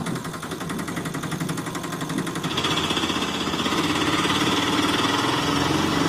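Small engine sound laid over a toy auto rickshaw: an engine running with a rapid, even pulse that gets louder about two and a half seconds in, as if pulling away.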